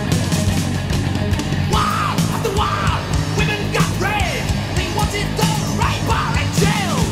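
Thrash/speed metal recording: distorted band music with drums, played loud and dense throughout, with high notes that bend up and down cutting in from about two seconds in.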